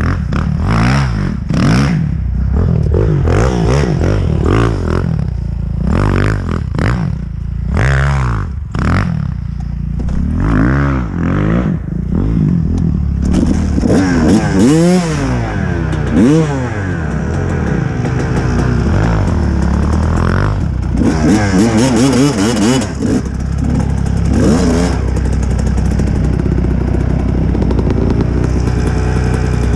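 A Kawasaki KX dirt bike engine heard from the rider's seat as the bike is ridden on a dirt track. The revs rise and fall about once a second through the first half, sweep up and down more widely around the middle, then hold steadier near the end.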